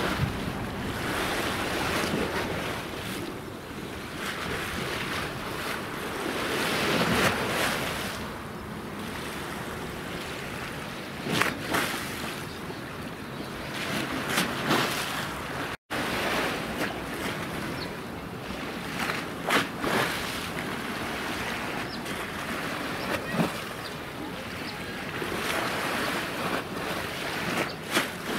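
Wind buffeting the microphone over the wash of choppy sea water, with several short louder gusts. The sound drops out for an instant a little past halfway.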